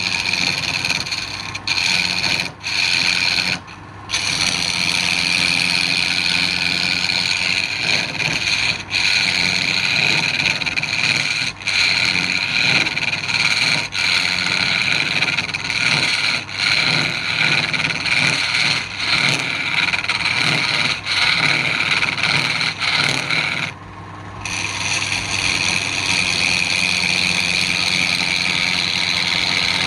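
Wood lathe running with a low motor hum while a tool scrapes against the spinning wood in a steady, rasping grind. The scraping stops briefly twice, about three seconds in and again past the twenty-second mark, while the lathe keeps turning.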